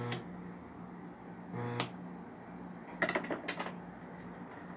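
A quick run of metallic clinks and rattles about three seconds in, as metal pieces are handled at a workbench, over a steady low electrical hum.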